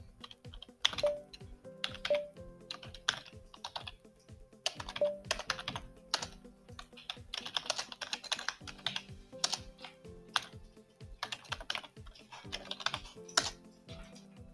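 Typing on a computer keyboard: irregular runs of keystrokes with short pauses between them, as shell commands are entered.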